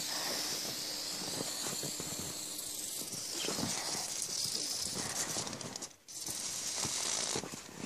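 Aerosol can of silly string hissing as it sprays, with a brief break about six seconds in.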